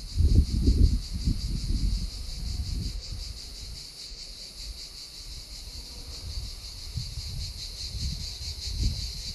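A chorus of cicadas buzzing steadily with a fine, fast pulse. Gusts of wind rumble on the microphone in the first couple of seconds and again near the end.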